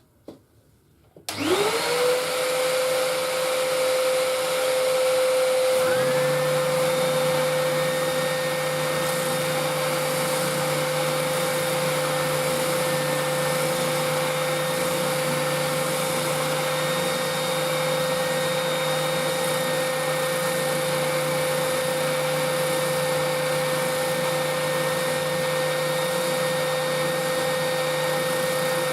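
Workshop sander motor switched on, spinning up with a rising whine and settling into a steady run; a second motor comes on about five seconds later and both run together steadily.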